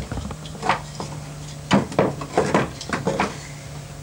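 Wooden toy castle blocks knocking and clattering against each other as they are handled, in a run of short sharp knocks, over a low steady hum.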